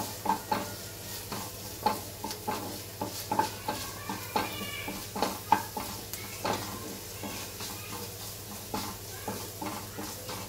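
Wooden spatula stirring and scraping onions sautéing with ginger-garlic paste in a non-stick kadai, knocking against the pan about once or twice a second, over a light sizzle of frying in oil.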